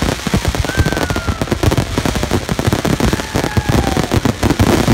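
Fireworks display at full intensity: rapid, continuous bangs and crackling shells, many in quick succession.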